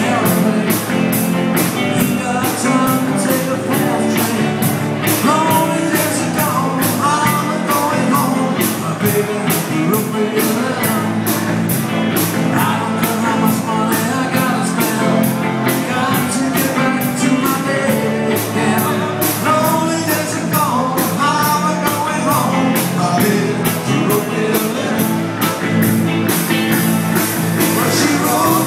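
Live rock band playing a 1960s-style classic-rock song: a sung lead vocal over electric guitars, drum kit and keyboard, with a steady driving beat.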